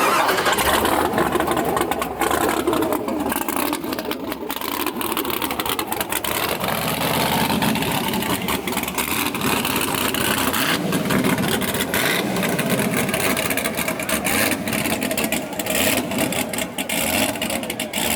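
Drag-race car engines running, their pitch rising and falling.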